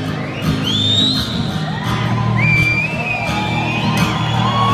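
Live band playing an instrumental passage on acoustic guitar over sustained low notes, with audience members in a large arena whistling twice and whooping over the music near the end.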